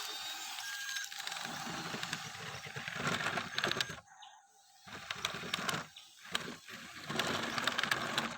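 Small electric motor and plastic gearbox of a remote-control toy whirring in spurts, with plastic clicking and rattling. It stops briefly about four seconds in and starts again.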